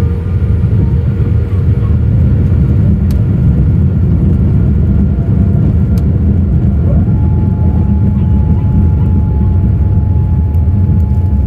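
Boeing 787-8 airliner heard from inside the cabin over the wing while it rolls on the ground: a loud, steady low rumble of engines and wheels. About seven seconds in, a whine rises briefly in pitch and then holds steady.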